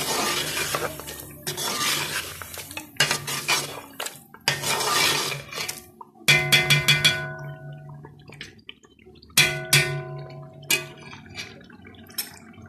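Spatula stirring and scraping a thick sauce in a pot in several strokes, then two quick runs of taps against the pot, about six and about nine and a half seconds in, each leaving the pot ringing.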